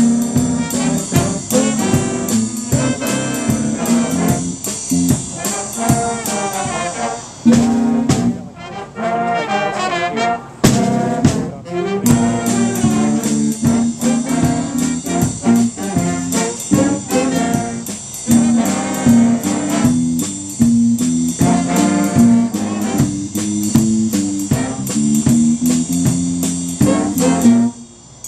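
Youth jazz band playing a big-band jazz tune: saxophones, trumpets and trombones over electric bass guitar, with the drum kit's cymbals keeping a steady beat. The band stops together shortly before the end.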